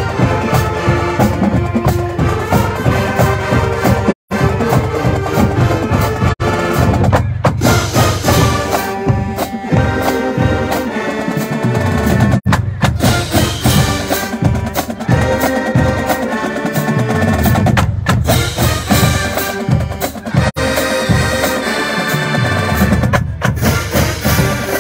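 College marching band playing: brass and saxophones over a drum line of snares and bass drums, with a brief dropout about four seconds in.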